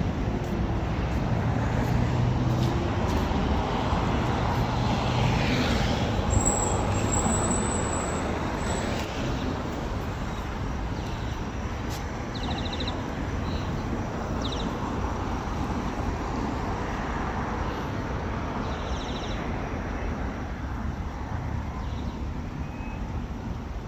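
City road traffic: a steady wash of passing vehicles, louder for the first several seconds as a vehicle goes by close with a low engine hum, and a brief high squeal about six seconds in.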